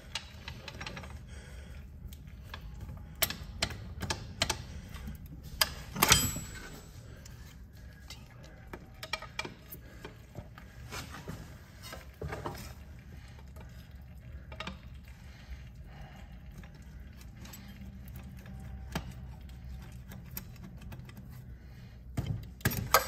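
Scattered metal clicks and clinks of pliers gripping, working and slipping on a car's front axle shaft at its carrier bearing as the stuck shaft resists being pulled out, with a louder knock about six seconds in. A low steady hum runs underneath.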